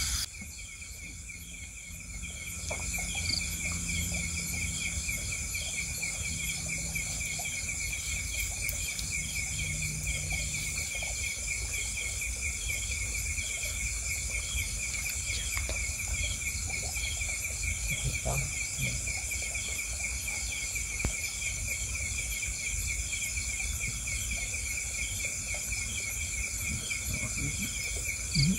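A chorus of insects, crickets or cicadas, trilling steadily in several high-pitched pulsing layers over a low rumble. The insects drop out for about the first two seconds, and a short, louder low sound comes right at the end.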